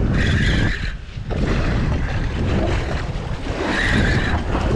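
Wind buffeting the microphone on a boat at sea, with water noise around the hull. A brief high-pitched whine sounds at the start and again near the end.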